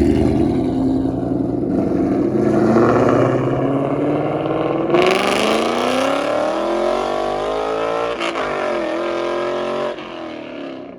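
Ford Mustang V8 accelerating hard, its exhaust note rising steadily in pitch for a few seconds, breaking briefly about eight seconds in as it changes gear, then dropping away near the end. The owner says the exhaust has a leak at a clamp.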